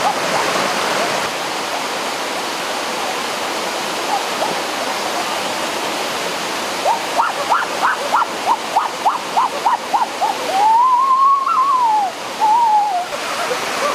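Water rushing over rock slabs of a stream cascade into a pool, a steady hiss. About halfway in, a run of short high chirps, several a second, starts over the water, followed by one long call that rises and then falls.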